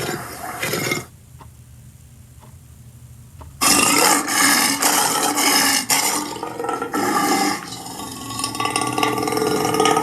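A rapid rattling, ratchet-like run of pulses for about a second, then after a short pause a long, rough, throaty vocal sound lasting about six seconds, like a drawn-out burp or growl.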